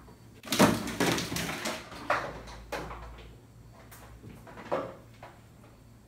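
A cat falling from the top of a refrigerator onto a wire shelving unit: a loud crash about half a second in, then a clatter of plastic baskets and shelf items being knocked about for a couple of seconds, and another knock near the end.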